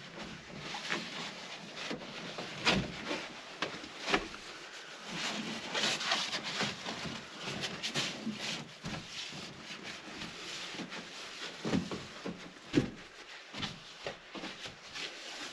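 Irregular rubbing and wiping on the inside of a van's sliding door as it is cleaned, with scattered light knocks and clicks throughout.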